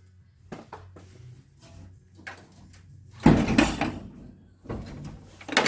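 Scattered knocks and clatter of work being handled, with a louder, longer clunk about three seconds in and another sharp knock near the end.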